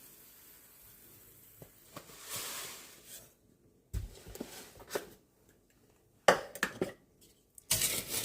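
Coarse kosher salt poured into a bowl of powder, a grainy hiss about two seconds in, followed by several sharp knocks and clatters of kitchen utensils against the bowl.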